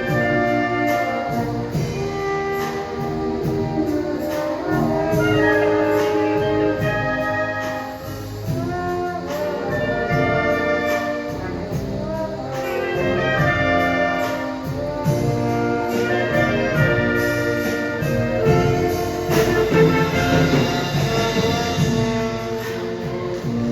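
Marching showband playing a Manila Sound medley live: a brass section of trumpets and trombones carrying the melody in held notes over a steady drum beat.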